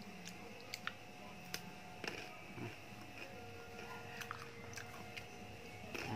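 Close-up chewing of crunchy potato snacks, with a sharp crunch every so often, about seven in all.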